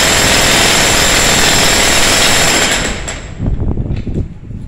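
Ryu Tekiro RDH 50 demolition hammer breaking reinforced concrete, its chisel hammering steadily and loudly, then stopping about three seconds in; a few quieter knocks and clatters follow.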